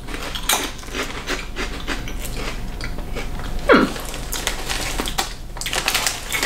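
Crunchy cheese snacks being chewed, with a rapid run of crackling crunches and the plastic snack bag crinkling. A brief falling "mm"-like vocal sound comes a little past halfway.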